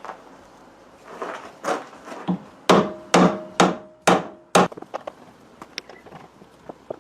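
Hammer blows on the metal parts of a benchtop drill press being assembled. A few softer knocks lead into five hard strikes about half a second apart, each with a short metallic ring, followed by lighter clicks and taps.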